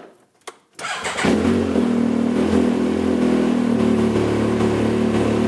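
A 2016 Yamaha YXZ1000R's three-cylinder engine is started: a click, then the engine catches about a second in, picks up briefly and settles into a steady idle. It is being run to warm the oil so it drains more easily before an oil change.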